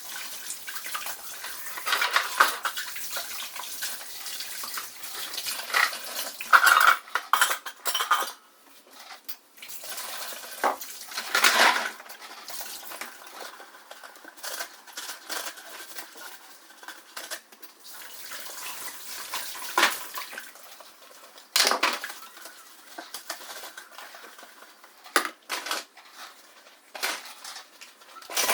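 Dishes and containers clattering as they are handled and set down: irregular knocks and clinks, a few louder ones scattered through.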